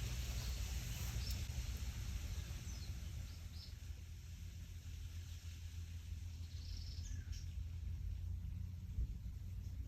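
Wind rustling through leaves, with a low wind rumble on the microphone. A few short, high bird chirps come through now and then, a couple about a second in, around three seconds in and near seven seconds.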